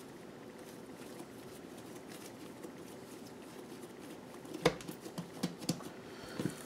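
A few seconds of quiet room tone, then a quick series of soft thumps and pats about two-thirds of the way in: a piece of pizza dough being set down and patted on a countertop by hand.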